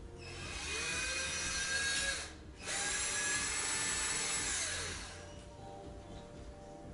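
Power drill run in two bursts of about two seconds each, the motor spinning up in pitch at the start of each and winding down at the end of the second.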